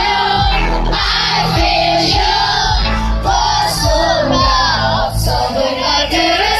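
Live K-pop concert: a boy group singing over a pop backing track with a pounding bass beat of about two pulses a second, and the audience shouting along.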